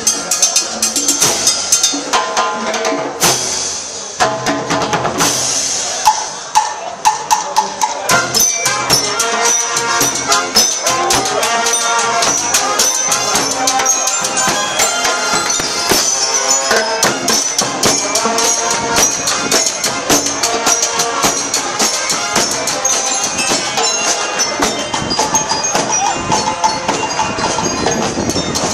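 Marching band playing as it passes: snare and bass drums beat a dense rhythm under a tune from bell lyres and brass.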